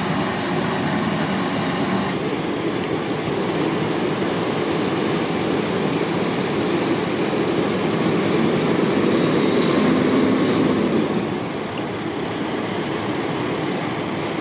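Steady mechanical rumble of a running vehicle engine, with a faint steady hum about ten seconds in and the rumble easing slightly near the end.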